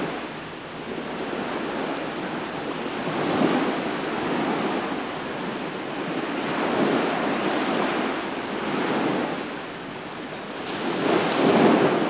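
Small waves washing onto a sandy lakeshore, swelling and fading about every three to four seconds, with wind blowing.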